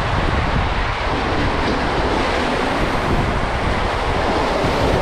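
Rushing water and a steady rumble from a ride ring sliding down inside an enclosed tube water slide, heard from the ring.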